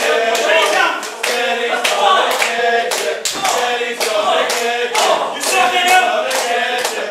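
Wrestling crowd chanting in unison and clapping along, about two claps a second.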